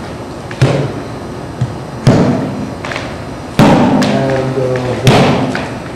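Class accompaniment on a struck instrument: a slow, steady beat of one stroke about every second and a half, each stroke ringing out with several pitched tones.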